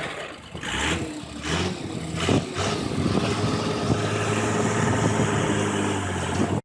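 A vehicle engine running, its pitch and level rising with a few knocks over the first couple of seconds, then holding at a steady drone until it cuts off abruptly.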